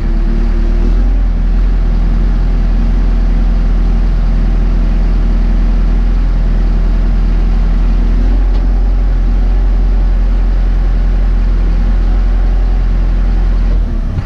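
Caterpillar D5K dozer's four-cylinder diesel engine running steadily, heard from inside the cab as a loud, even low rumble.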